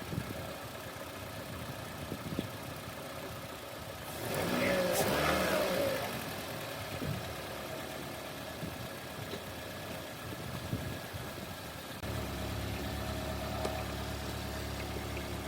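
2007 Toyota Corolla engine idling steadily just after a successful start, the no-crank fault cured. There is a brief louder burst about four seconds in, and a deeper steady hum joins about twelve seconds in.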